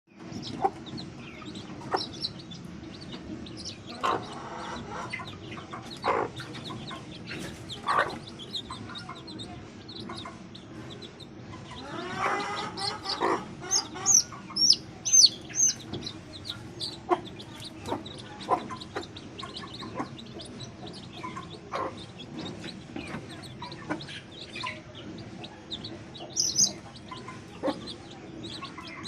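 A white parrot-beak hen clucking among her chicks, the chicks peeping. The hen gives a longer call about twelve seconds in, followed by a run of high, falling chick peeps, over a steady low hum.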